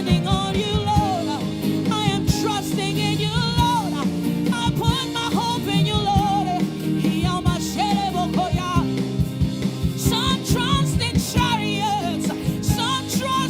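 Gospel worship song sung over a live band, with drum kit and guitar keeping a steady beat.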